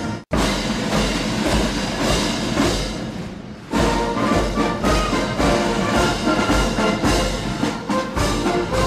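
Orchestral march music with brass and timpani. It drops out for a moment at the very start, sinks lower about three seconds in, then comes back fuller with a steady pounding beat in the bass.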